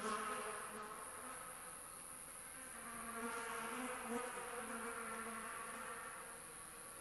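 Insect buzzing: a steady, wavering hum that swells and fades, over a constant high-pitched background drone.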